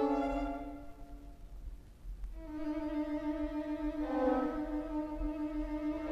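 Orchestral strings playing sustained bowed notes that fade away about a second in. After a brief hush, held string notes come back in at about two and a half seconds, moving to a new note about four seconds in.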